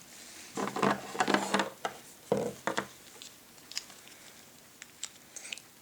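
Small plastic toy pieces being handled and fitted together: a run of short rustles and clicks, then a few scattered clicks.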